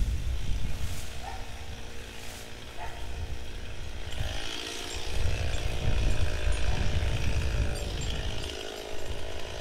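A chainsaw running steadily without revving up, over an uneven low rumble.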